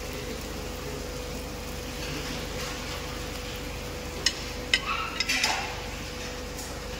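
Metal kitchenware clinking: a hand grater and stainless-steel plates knocked together on a steel counter, four or five sharp clinks a little past the middle, over a steady hum.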